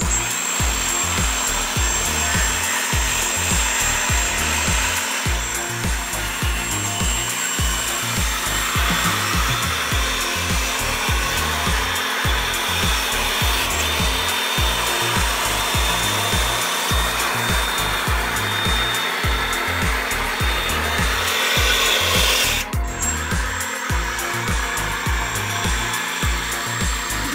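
Steady whirring hiss with a thin high whine from a 1/14 RC hydraulic bulldozer's on-board pump and motors, over background music with a beat. About three quarters of the way in the whir cuts off for a moment and starts again.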